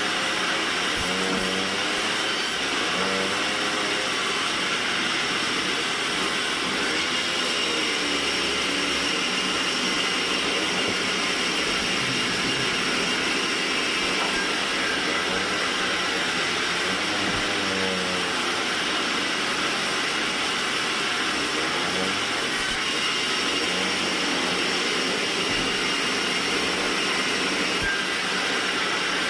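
Band sawmill running steadily, a continuous rushing whine with a faintly wavering lower tone, typical of the blade working through hardwood.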